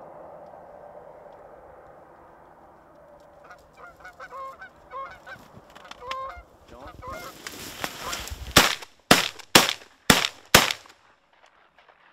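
Canada geese honking as they come in over the decoys, then a brief rustle and a rapid volley of five shotgun shots in about two seconds.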